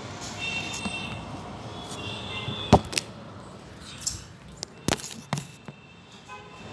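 A few sharp knocks and clicks from the phone being handled, moved and set down, the loudest about two and a half seconds in and a cluster around five seconds, over low room noise.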